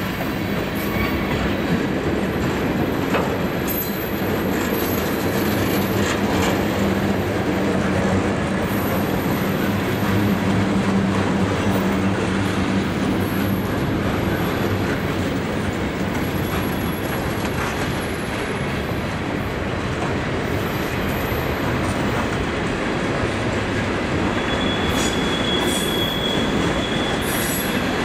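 Freight train cars (boxcars, tank cars, covered flatcars) rolling past on steel rails, a steady rumble of wheels on track. High-pitched wheel squeals come and go, with a longer squeal near the end.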